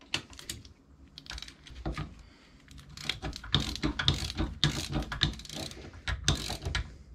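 Hand ratchet wrench clicking as a bolt is run in with short back-and-forth strokes, light at first and then in louder, steady strokes from about three seconds in.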